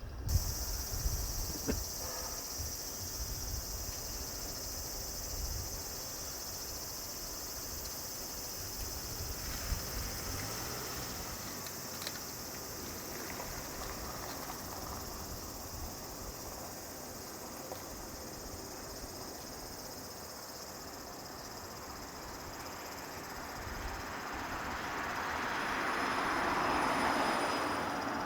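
Insects buzzing in a steady high drone, with the four turbofan engines of a Boeing E-3B Sentry on landing approach growing louder near the end.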